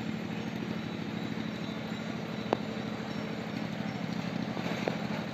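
Steady low hum of an engine running at idle, with two sharp clicks, one about two and a half seconds in and one near the end.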